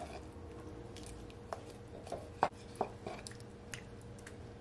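Wooden spoon stirring chicken wings in curry gravy in a non-stick pan: soft wet squelching with a few light knocks of the spoon against the pan, over a faint steady hum.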